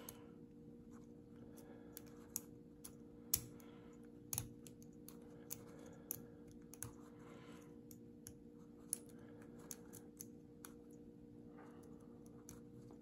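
Lock pick and tension wrench working the pins of a Lockwood pin-tumbler padlock: faint, irregular sharp clicks of metal on metal as the pins are set, over a steady low hum.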